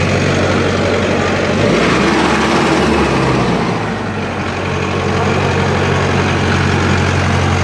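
A tractor's diesel engine idling steadily, a low hum. About two seconds in its note shifts for a couple of seconds, then settles back.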